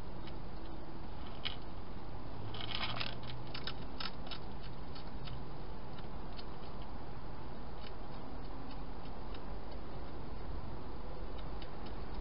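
Wild hedgehog chewing dry food inside a plastic feeding box: scattered crisp crunching clicks, coming thick and fast for a couple of seconds about three seconds in, over a steady hiss.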